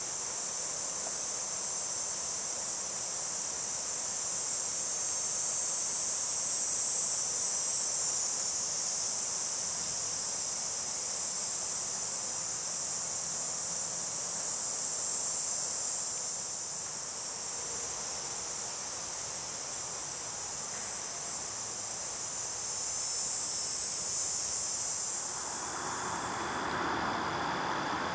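Steady, high-pitched late-summer insect chorus that slowly swells and eases. Near the end it cuts off and a lower, even rushing noise takes over.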